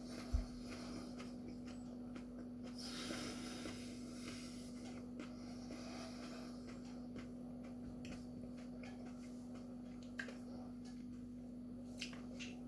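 A person quietly chewing a mouthful of superhot chili pepper, with faint mouth clicks and breathing through the nose, over a steady low hum. There is a soft thump about half a second in.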